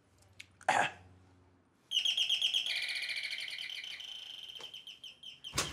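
Electronic bird-song doorbell chiming a fast chirping warble for about three and a half seconds, starting about two seconds in and fading a little before it stops. A sharp clack near the end.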